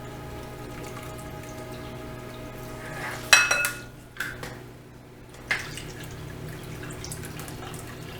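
Water being poured from a cup into a dish of soaked rice. About three seconds in there is a sharp ringing clink of the cup against the dish, followed by a couple of lighter knocks.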